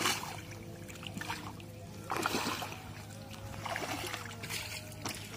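Hands splashing and churning in shallow muddy water in a few short bursts, over steady background music.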